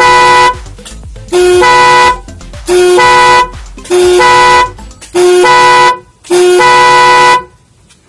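Newly installed car horn sounding six loud blasts of about a second each, evenly spaced, each opening on a brief lower note before the full tone.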